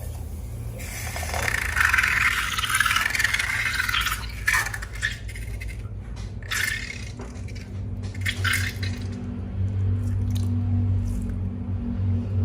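Wet slime being squished and worked by hand: a stretch of sticky, noisy sound from about one to four seconds in, then a run of short squishes.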